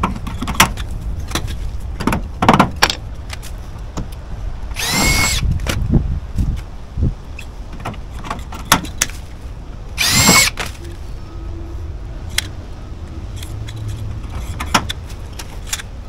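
Cordless drill run in two short bursts, about five and ten seconds in, its whine rising as it spins up, amid scattered clicks and knocks of tools and fittings being handled.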